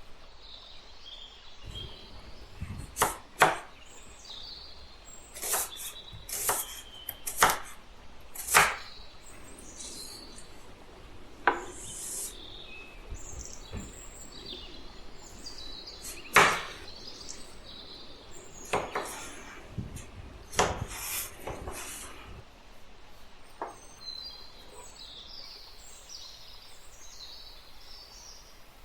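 Knife chopping on a wooden cutting board: single sharp strikes at an uneven, unhurried pace, about fifteen over the stretch.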